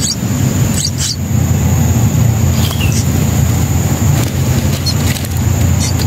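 Short, high, squeaky chirps of songbird nestlings begging from the nest, a few times, one of them falling in pitch, over a loud steady low rumble.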